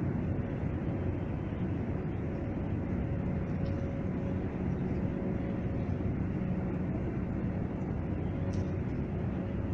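Steady low mechanical rumble with a faint constant hum from the old Niederfinow ship lift in operation, as its trough moves through the steel frame.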